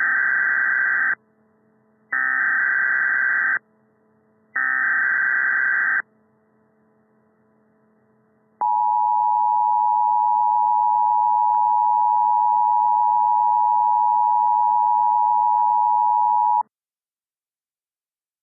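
Emergency Alert System SAME header: three buzzing data bursts about a second and a half each, then the two-tone EAS attention signal, a steady tone held about eight seconds before cutting off. Together they open a required monthly test.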